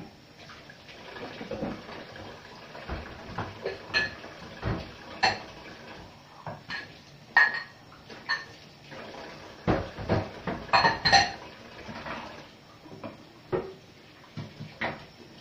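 Dishes and cutlery being washed by hand in a stainless-steel kitchen sink: repeated sharp clinks and clatters with a short metallic ring, over running tap water. The loudest knocks come about seven seconds in and again around ten to eleven seconds in.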